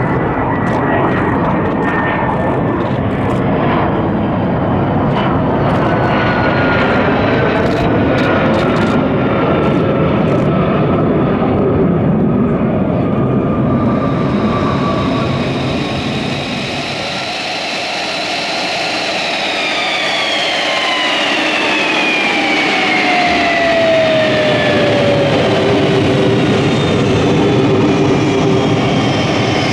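F-35A Lightning II's single Pratt & Whitney F135 jet engine running as the jet lands and rolls out: a loud roar at first, thinning out about halfway, then high whines that fall steadily in pitch.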